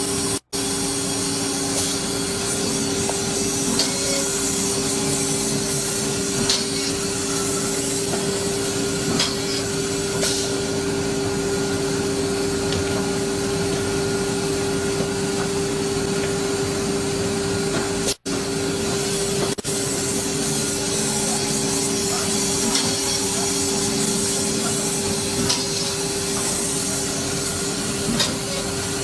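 Panel-processing woodworking machine running steadily: a constant motor hum with one steady tone over an even hiss, and occasional light clicks and knocks. The sound cuts out for an instant twice.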